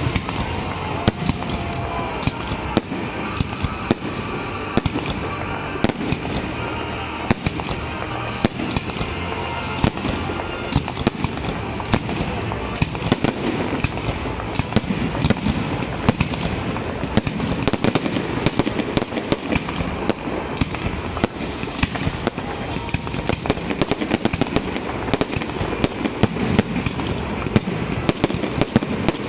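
Fireworks display: aerial shells bursting overhead in a rapid, continuous barrage of bangs, many each second.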